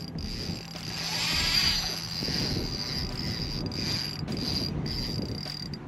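Spinning reel being cranked, a steady mechanical whirr that swells for a moment about a second in.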